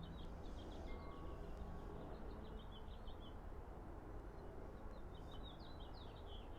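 A small songbird singing two runs of quick, high chirps, the first ending about halfway through and the second near the end, over faint steady background noise.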